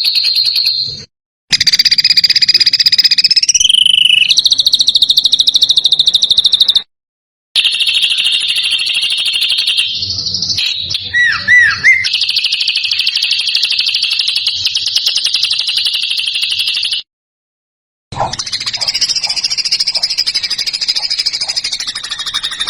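Edited songbird recording for training caged birds: long runs of fast, buzzy, high-pitched trills and rattles, the rough rapid-fire phrases called 'tembakan kasar'. The trills are cut by three short silent gaps where clips are joined, and about halfway through a few louder, lower looping notes break in.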